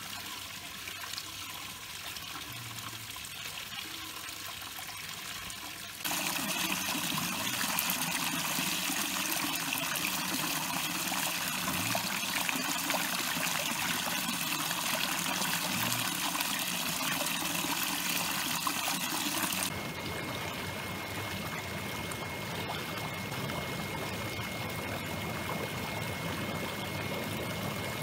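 Steady running water trickling and flowing. It jumps abruptly louder about six seconds in and changes again about twenty seconds in, as if cut between different shots of flowing water.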